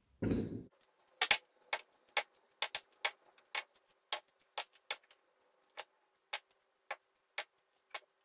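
Small kitchen knife clicking against a wooden cutting board as radishes are topped and tailed, about two sharp clicks a second that thin out toward the end, after a dull thump at the start.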